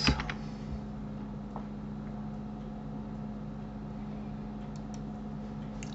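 Steady low electrical hum with faint hiss from the recording setup, with a few faint clicks, mostly near the end.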